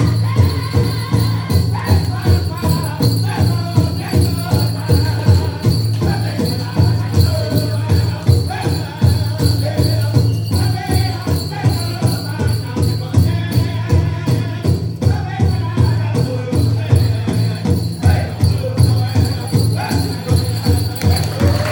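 Powwow-style drum song: a steady, even drumbeat with chanting voices over it.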